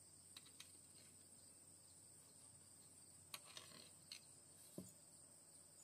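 Near silence: faint, steady high-pitched chirring of crickets or other insects, with a few faint clicks and taps as a knife cuts through a tomato on a plate.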